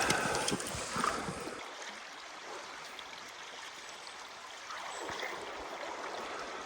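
Creek water running, a steady rush of flowing water, a little louder in the first second and a half.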